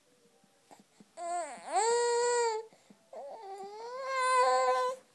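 Infant girl vocalizing in two long, loud, high-pitched calls: the first, about a second in, dips and then holds one pitch; the second, starting about three seconds in, rises and holds.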